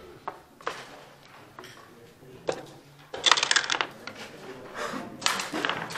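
Backgammon dice rattling and tumbling in a quick burst of clicks about three seconds in, with single sharp clicks of checkers being set down on the board before and after.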